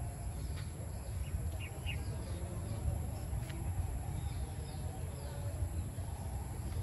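Low steady rumble with a few faint, short high chirps scattered through, and a single sharp click about three and a half seconds in.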